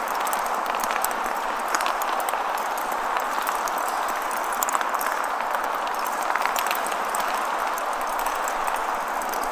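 Hundreds of small wooden blocks, hung on ropes turned by 336 DC motors, knocking and scraping against the floor: a dense, steady clatter of countless small taps with no pauses.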